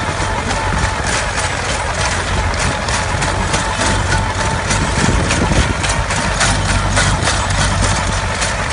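Tractor diesel engine running steadily, with a dense, irregular clicking over it.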